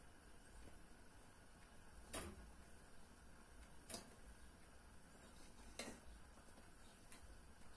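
Quiet kitchen with three light clicks about two seconds apart and a fainter one near the end: utensils tapping the cooking pot as boiled dough pieces are lifted out with a wire skimmer and pierced with a wooden skewer.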